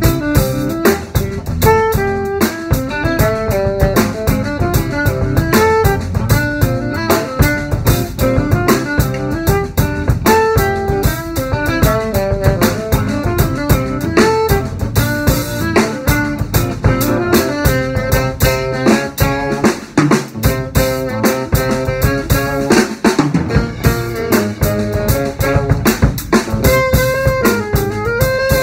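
Small jazz group playing: a drum kit with busy, steady strokes under guitar and a fast-moving melody line.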